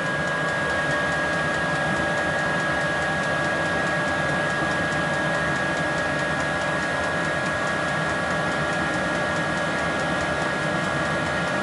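Small 12-volt diesel air heater running through its startup: the blower fan runs steadily with a high whine over an even rush of air. Combustion has started but is not yet self-sustaining.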